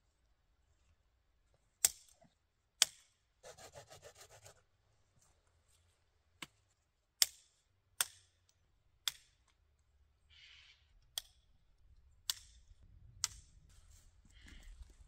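A series of sharp, irregularly spaced knocks, about nine in all, each with a short ringing tail, with a rough rasping scrape lasting about a second after the second knock.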